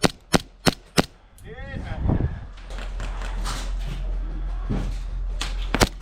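Gas-blowback Hi-Capa airsoft pistol firing: three sharp shots in quick succession in the first second and two more near the end, with rustling movement noise in between.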